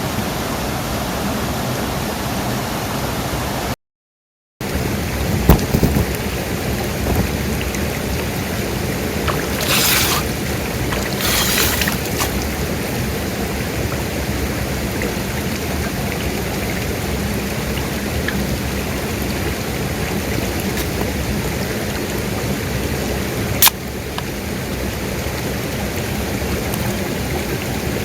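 Steady rushing of water, with a few light knocks, two short rustling bursts about ten and eleven seconds in, and a single sharp click near the end. The sound drops out for under a second near the start.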